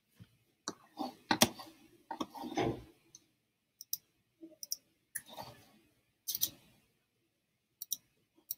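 Quick pairs of sharp clicks, typical of a computer mouse being clicked, between louder bumps and rustles of things handled on a desk.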